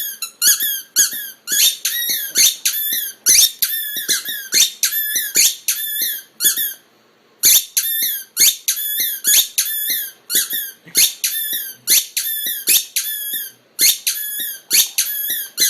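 A small animal making rapid, high-pitched squeaky chirps, about two a second, with a short pause about seven seconds in.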